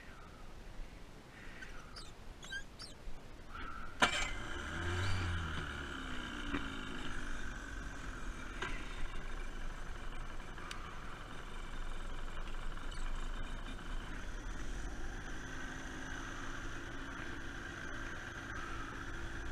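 30 hp two-stroke Tohatsu outboard motor starting with a sharp click about four seconds in, then running steadily at idle.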